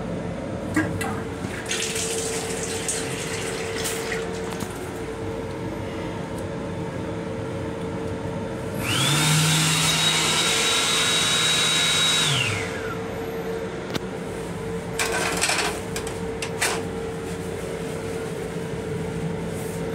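Hand dryer of an M7 railcar restroom sink unit: its blower spins up with a rising whine, runs steadily for about three and a half seconds, then winds down. Shorter bursts of water from the faucet come before and after, over a steady hum.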